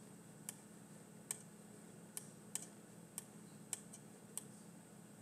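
Faint, irregular single clicks of computer controls being worked, about seven in five seconds, over a low steady electrical hum.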